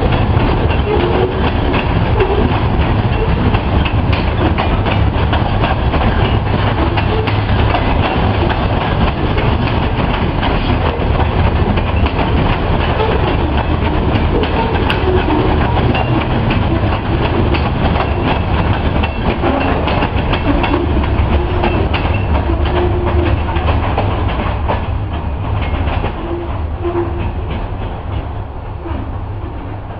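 Freight train cars rolling past, their wheels clacking over the rail joints; the sound eases off over the last few seconds.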